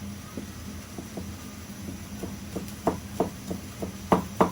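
Kitchen knife chopping scallions on a cutting board: light, scattered taps at first, then firmer, quicker chops about three a second near the end. A steady low hum runs underneath.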